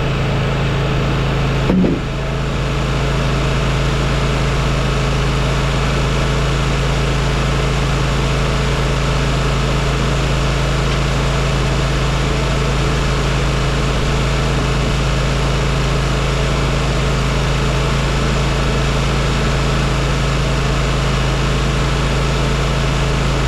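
Timberking 1600 portable band sawmill's engine running steadily, with a short knock and a brief dip in level about two seconds in.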